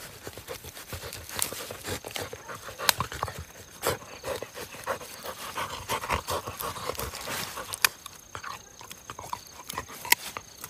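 A yellow Labrador retriever gnawing a raw sweet potato: irregular wet chewing and crunching, with a few sharp, louder crunches as it bites into the firm tuber.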